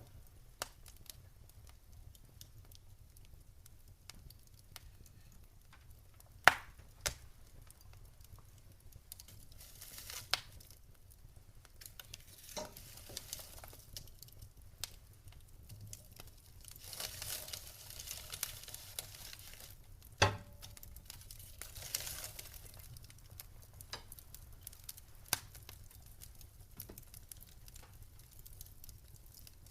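Wood fire burning in a fireplace: scattered crackles and sharp pops, the loudest about six and a half seconds in and about twenty seconds in, with short stretches of soft hissing between them.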